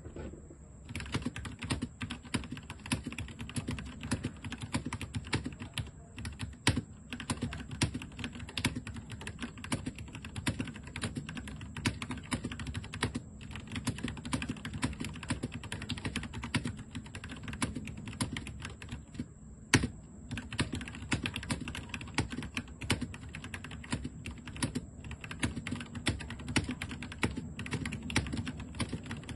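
Typing on a Royal Kludge RK84 mechanical keyboard with Gateron Yellow Pro linear switches and Bushido keycaps: a fast, continuous clatter of keystrokes starting about a second in. About two-thirds through the typing stops briefly, broken by one louder key strike.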